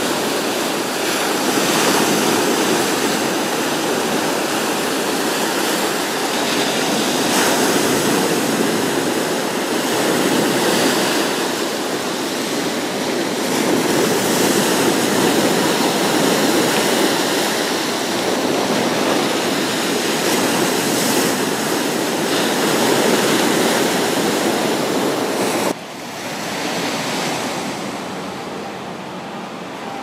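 Sea waves breaking and washing up a sandy shore, the surf swelling and easing every few seconds. About 26 seconds in it drops suddenly to a quieter, gentler wash.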